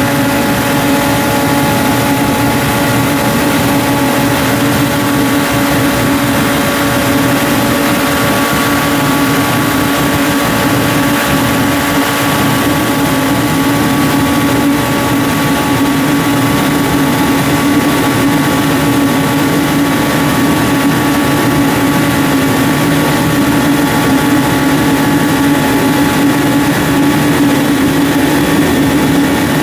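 Forced-air kerosene torpedo heater running just after being switched on. Its fan motor and air/fuel pump hum steadily at one pitch, with a few higher steady whines over the rush of blown air.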